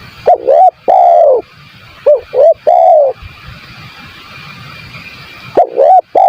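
Spotted dove (tekukur) cooing: three calls, each two quick short coos followed by one longer, drawn-out coo, a couple of seconds apart.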